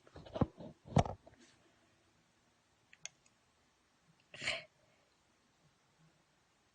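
Slimy goo being squeezed and worked between fingers, giving a few short wet clicks and pops, two of them loud in the first second or so, fainter ticks later, and a short breathy noise about four and a half seconds in.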